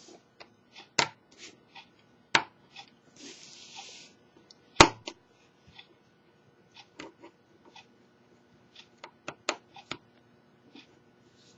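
Small clicks and taps of a small screwdriver and tiny screws being worked out of a Samsung Galaxy S4 phone, with a few sharper knocks and a short scraping rustle a few seconds in.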